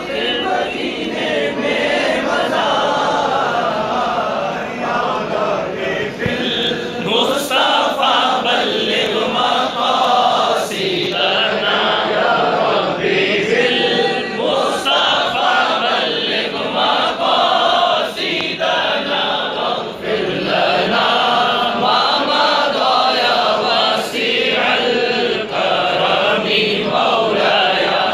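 Large crowd of men chanting together, many voices overlapping in a steady mass.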